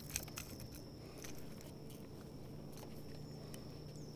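Faint steady low hum with a thin high whine over it, and a few light clicks of handling.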